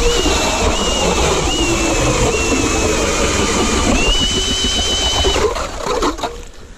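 Cordless drill spinning a 150 mm ice auger through thick ice: a steady motor whine over a grinding churn, the pitch dipping every second or so under load. About four seconds in the pitch rises and holds steady, and the drill stops about a second and a half later.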